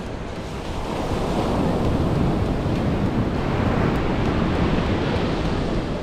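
Ocean surf breaking and washing up the beach, a rushing noise that swells about a second in and eases near the end, with wind buffeting the microphone.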